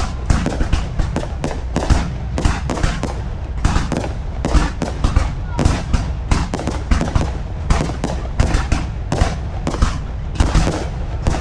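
Fireworks display: a dense, irregular barrage of bangs and crackles, several a second, over a constant low rumble.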